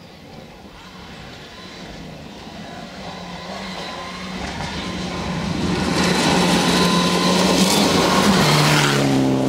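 Mitsubishi Lancer Evolution rally car's turbocharged four-cylinder engine at full throttle on a gravel stage, growing steadily louder as the car approaches, with gravel and tyre hiss rising as it nears. Near the end the engine note drops to a lower pitch.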